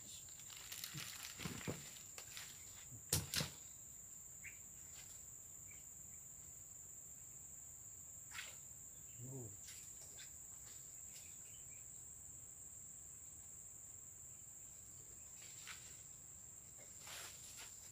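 Steady high-pitched insect drone, with faint rustling early on and two sharp knocks about three seconds in.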